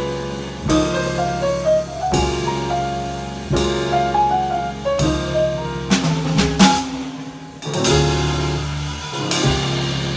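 Live jazz piano trio: piano lines over a walking double bass, with drum kit and ride cymbal. The drummer plays a short fill of sharp strokes about six seconds in, and the band lands on loud accented chords near eight and nine seconds.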